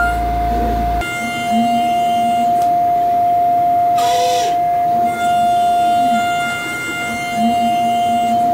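Pocket NC desktop five-axis CNC mill roughing an aluminium housing: a steady high-pitched spindle whine with lower sliding motor sounds beneath it. A brief hiss comes about four seconds in.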